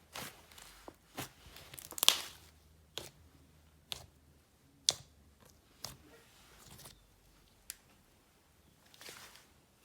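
Slime being handled, poked and stretched: a string of sharp pops and crackles about once a second, the loudest about two seconds in, with a few softer squishy rustles between them.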